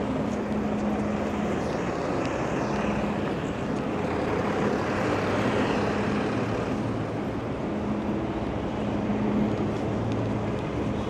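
Steady vehicle engine noise, with a low hum that comes and goes.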